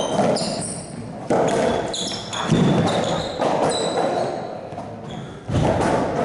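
Racquetball being struck and hitting the walls and floor of an enclosed court, each hit a sharp smack with an echo, about one a second, with short high squeaks of court shoes on the floor between hits.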